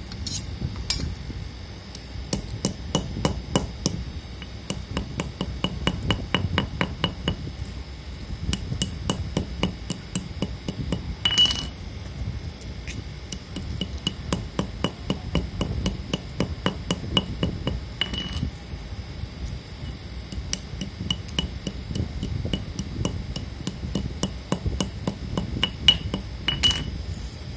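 Raw multani mitti (Fuller's earth) chunks being crushed and snapped: a steady run of sharp, dry cracks, several a second, with three louder snaps that ring briefly.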